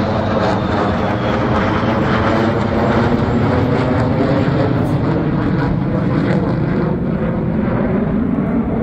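Loud, steady jet noise from a formation of four military fighter jets flying overhead. The higher hiss thins out over the last couple of seconds as they move away.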